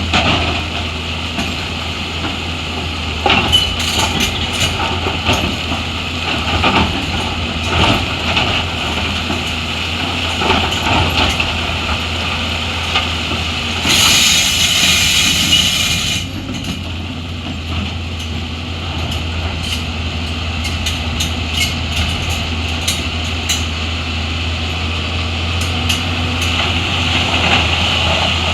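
Heavy diesel machinery engine running steadily, with scattered knocks and clanks and a hiss of air lasting about two seconds about halfway through.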